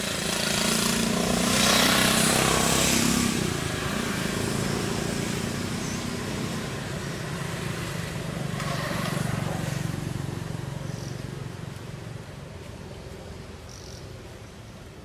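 A motor vehicle's engine running nearby, growing louder about two seconds in and again around nine seconds, then fading away.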